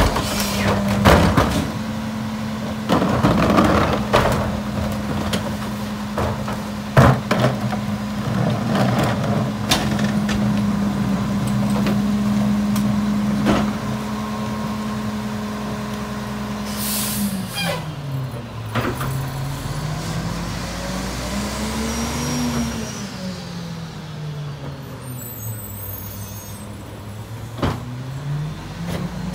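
Rear-loader garbage truck's diesel engine held at a steady, raised speed while its hydraulics work, with knocks and clanks of a cart being emptied at the start. A little past halfway an air-brake hiss sounds, then the engine's pitch drops and swells up and down as the truck pulls forward, rising back to the working speed near the end.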